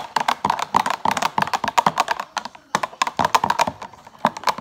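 Metal wire whisk beating a liquid mixture in a glass measuring cup, a fast run of clinks against the glass with a brief pause a little over halfway through.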